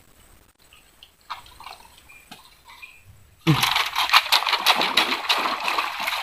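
Sudden loud splashing at the water's surface, starting about three and a half seconds in and lasting about three seconds: a fish thrashing as it strikes at a surface lure.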